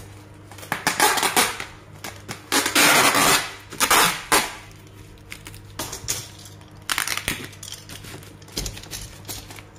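Clear packing tape pulled off its roll in about half a dozen noisy pulls, the longest nearly a second around the middle, and pressed onto bubble wrap, which crinkles under the hands.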